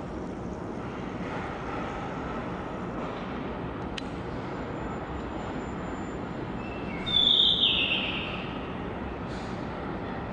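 Blue rock thrush singing one short, bright phrase about seven seconds in, over a steady background rumble.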